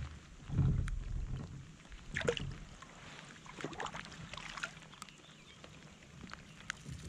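Handling sounds in a kayak as a largemouth bass is released over the side: low bumps against the hull, then water splashing.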